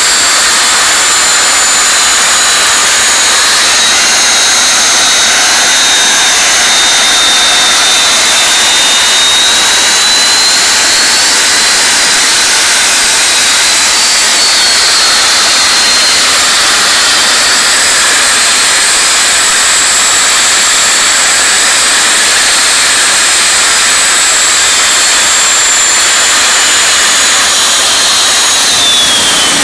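RU-19A-300 turbojet engine running steadily: a high turbine whine that drifts slightly in pitch over a loud rush of exhaust. Near the end the whine starts to fall as the engine slows.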